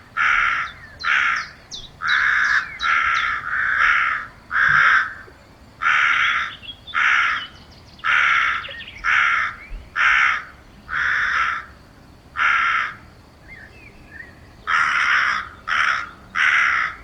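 Crows cawing, harsh caws coming about one a second, with a short break about thirteen seconds in before three more caws.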